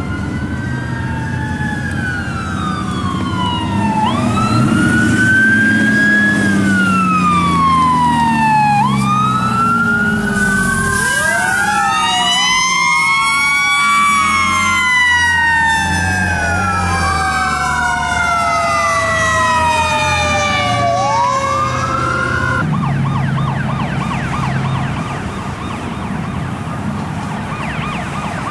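Fire engine sirens wailing, several overlapping and rising and falling out of step, over the rumble of the trucks' engines as they pass. Near the end a faster, rapidly warbling yelp siren takes over.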